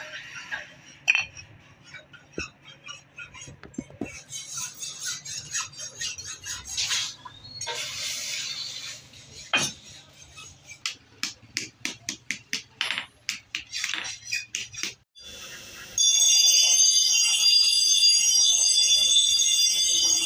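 Steel tongs and a hatchet head clinking and scraping as they are handled at the forge: a scatter of sharp, irregular clicks. Near the end, a bench grinder's abrasive wheel grinding the steel hatchet head starts suddenly, a loud, steady, high-pitched grinding noise.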